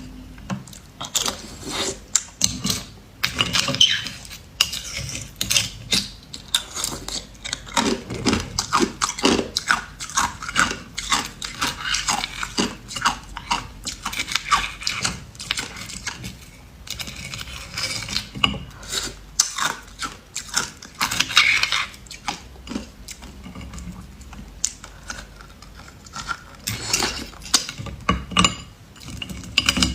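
Hard ice being bitten and chewed close to the microphone: a continuous run of sharp, irregular crunches and cracks.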